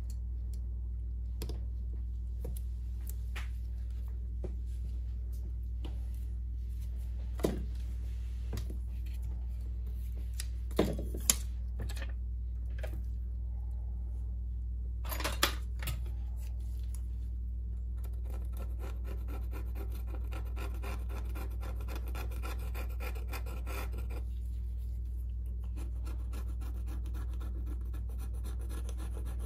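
Gloved fingers handling a Samsung Galaxy Note 9 and its new battery in the opened phone frame: a few sharp clicks and taps scattered through the first half, then from about two-thirds of the way in a steady rapid scratching and rubbing against the frame. A low hum runs underneath throughout.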